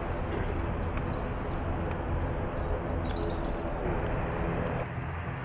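Airliner engines running with a steady rumble and hiss that eases a little near the end. A bird chirps briefly about three seconds in.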